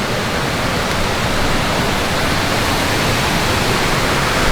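A small creek cascade running heavy after rain, a steady loud rush of water.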